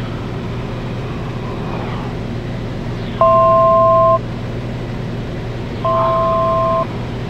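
Cessna 210 Centurion's engine and propeller droning steadily in the cabin. Twice, a couple of seconds apart, an electronic tone of two notes sounding together beeps for about a second.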